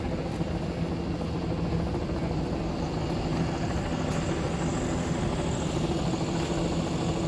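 Steady engine drone, an even low hum that holds unchanged over a rumble of noise.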